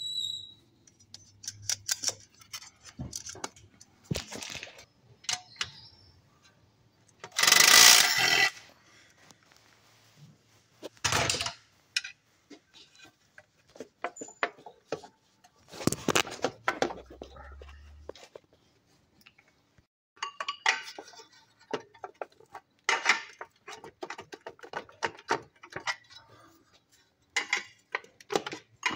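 Irregular metallic clinks, rattles and knocks of hand tools and parts being handled on a car's clutch assembly, with one louder burst of noise lasting about a second, about eight seconds in.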